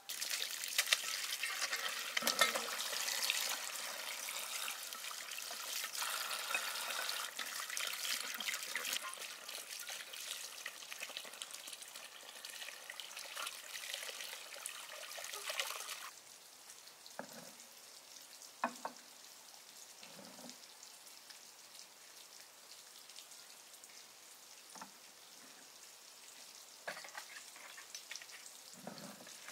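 A steady crackling sizzle full of fine clicks that starts abruptly and cuts off suddenly about sixteen seconds in, followed by a quieter stretch with a few scattered soft knocks and clicks.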